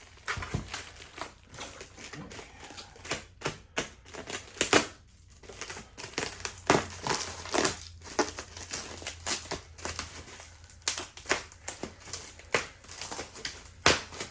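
Bubble wrap and packing material being handled and pulled off a boxed typewriter, crinkling and rustling in short irregular crackles.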